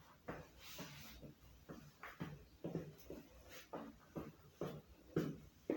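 A person's short, sharp exhalations or grunts of effort, about two a second, in time with punching and swinging light dumbbells.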